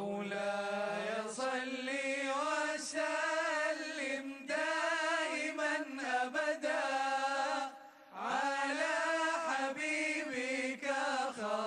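Male voice chanting Islamic madih, devotional praise poetry for the Prophet, holding long wavering notes. It breaks off briefly about eight seconds in, then goes on.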